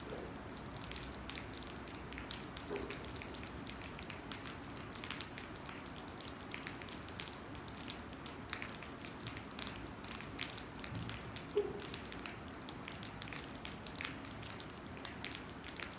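Rain falling: a steady hiss with many separate drops ticking irregularly, and one slightly louder knock about three quarters of the way through.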